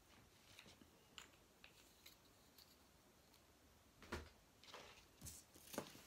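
Quiet handling of a paint tube and plastic palette tray on a table: a few faint clicks and taps, then several louder short knocks in the last two seconds.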